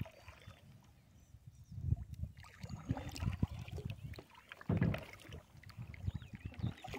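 Kayak paddle strokes in the water, a swelling swish every second or so, with small clicks and knocks in between.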